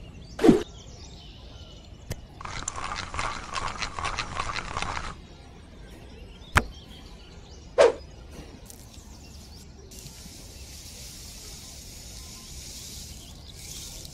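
Wooden sticks scratching and scraping through fine dry sand, with a few short knocks in between.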